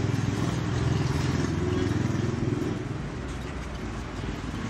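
A motor vehicle engine running with a low, steady hum, growing fainter about three seconds in.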